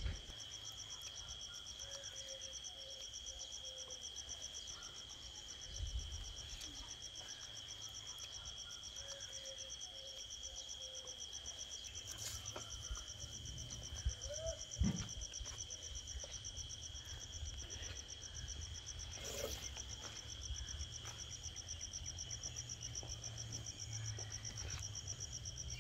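Insects trilling steadily at a high pitch: one a continuous whine, another a fast pulsing trill. A faint low rumble and a few soft clicks lie underneath.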